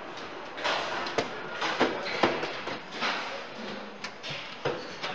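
Car assembly line ambience: irregular knocks and clatter with brief rushes of hissing noise, about eight in a few seconds, over a steady background din.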